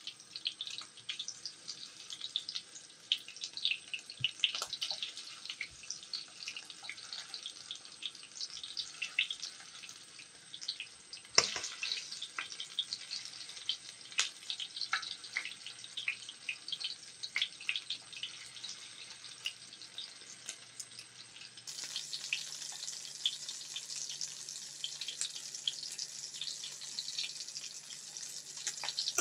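Batter-coated chicken fillet pieces frying in hot oil in a frying pan: a steady sizzle full of fine crackling and spitting, turning denser and more even about two-thirds of the way in. A few sharper taps, the loudest about a third of the way in, come from metal tongs turning the pieces in the pan.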